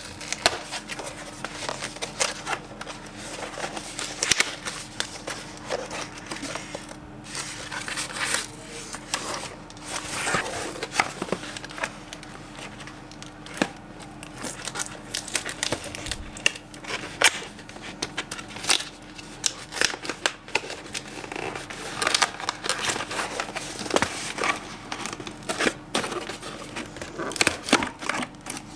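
Packaging being handled: irregular rustling and crinkling with frequent small clicks and taps, over a faint steady hum.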